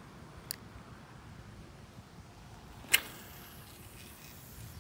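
A fishing rod and reel being cast: a faint click about half a second in, a sharp loud click about three seconds in, then a faint high hiss, over low wind rumble on the microphone.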